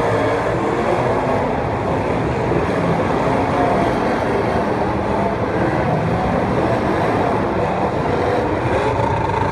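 Several racing engines running together, their pitch wavering up and down.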